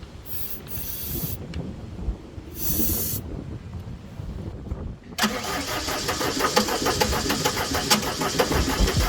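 Deutz diesel engine of a Gehl 4640 skid steer starting about five seconds in and then running with a fast, even beat. Before it catches there is a low rumble and two short hisses.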